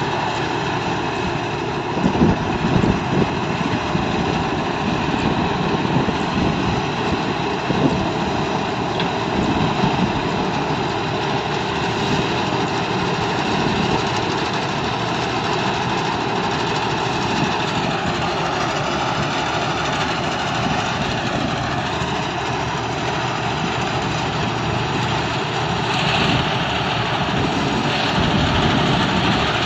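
Combine harvester running steadily as it cuts ripe rice, a continuous engine and machinery drone. There are a few brief louder bumps about two seconds in, and the drone grows louder near the end as the machine comes closer.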